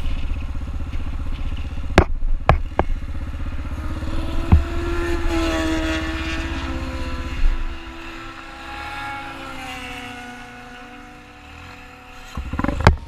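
Motorcycle engines running: a steady engine rumble close by with a few sharp clicks. About halfway through, a motorcycle passes on the highway, its engine note rising and then falling away as it goes by. The sound grows loud again near the end.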